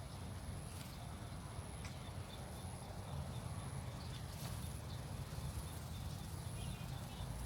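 Quiet background: a low rumble with a thin, steady high-pitched tone that breaks off every second or two, and a few faint clicks.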